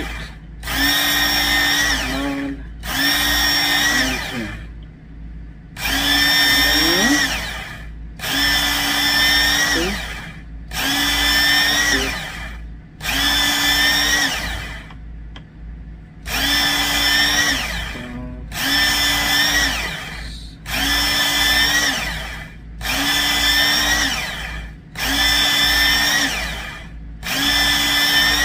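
Work Sharp Knife and Tool Sharpener's electric belt motor run in short bursts of about one and a half seconds, about a dozen in all, with a short pause between each. On each run the D2 steel knife blade is drawn through the angle guide against a fine-grit belt, one sharpening pass per burst. The steady whine falls in pitch at the end of each burst as the motor spins down.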